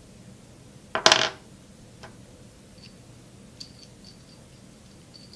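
Small metal nuts and bolts clink sharply together once, about a second in, with a brief ring. This is followed by a few faint, light metallic ticks as a nut is worked onto a bolt by hand.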